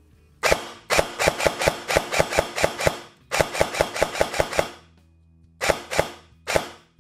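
Ares/Begadi OMR SOC SLR airsoft sniper AEG firing semi-automatic shots on its light microswitch trigger. The shots come in quick runs of about five a second, two runs with a short break between them, then a few single shots spaced out near the end.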